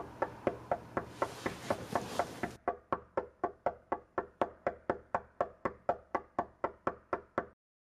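Steady, rapid knocking on a wooden door, about four knocks a second, that keeps on without a break and stops abruptly near the end. A short rustling noise comes between about one and two and a half seconds in.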